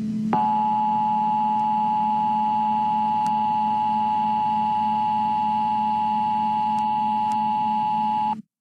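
Emergency Alert System attention signal: the standard steady two-tone alert beep, held for about eight seconds and cutting off suddenly near the end, over a low steady hum.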